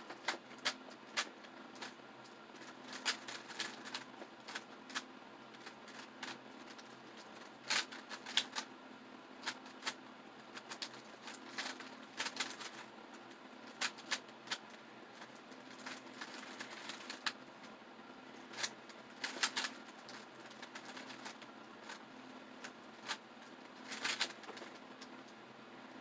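3x3 GAN speedcube being turned by hand: an irregular clatter of sharp plastic clicks, singly and in quick runs, as its layers are turned.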